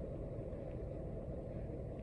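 Steady low rumble of background noise, even throughout, with no distinct event standing out.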